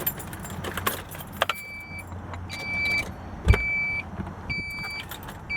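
Car keys jangling and clicking in the ignition, then the car's dashboard warning chime beeping about once a second. A low hum runs under the first half, and there is one loud thump about three and a half seconds in.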